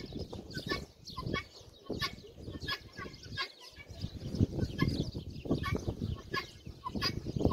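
Helmeted guinea fowl calling while they forage, short call notes repeated a few times a second.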